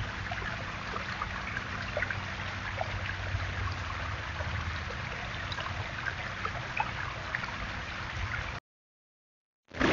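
Small stone waterfall of a backyard water feature splashing steadily over rocks, with scattered small drips and splashes. It cuts off suddenly about eight and a half seconds in.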